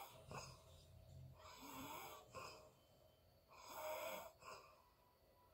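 A sleeping person snoring softly: faint, wheezy breaths, two of them about two seconds apart.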